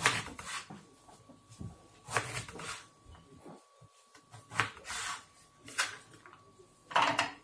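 Kitchen knife chopping peeled horseradish root on a wooden cutting board: irregular sharp knocks of the blade striking the board, roughly one a second, the loudest near the end.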